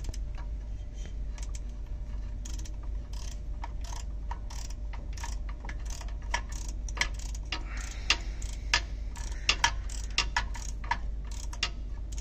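Ratchet wrench clicking in irregular runs as it turns a socket on an extension to tighten the starter motor's 18 mm mounting nuts. The clicks grow sharper and come more often in the second half.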